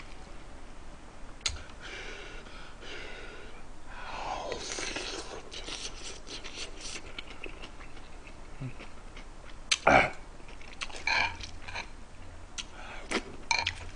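Eating sounds close to the microphone: chewing and breathing, with light clicks of a metal spoon against earthenware pots and one sharper clack about ten seconds in.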